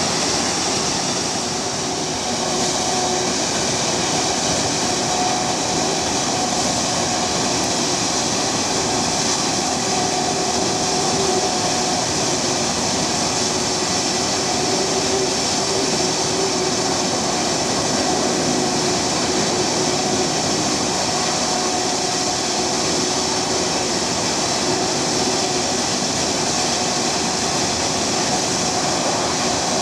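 Boeing 757-200's twin jet engines idling steadily, a loud whine of several steady tones over a constant rushing hiss, with no spool-up.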